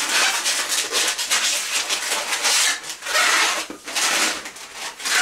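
Inflated latex 260 twisting balloons rubbing against each other as they are twisted together. The rubbing is loud and comes in several bursts with short breaks.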